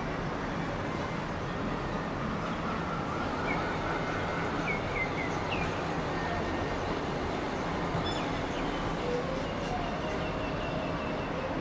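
Steady distant city traffic noise heard from high above the streets, with a few brief bird chirps about four to five seconds in.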